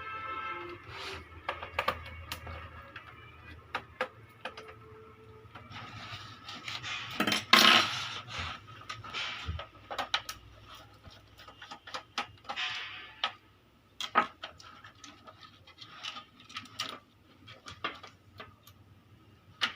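Plastic computer keyboard being handled and taken apart: scattered clicks and clatters of plastic parts, the loudest about seven and a half seconds in.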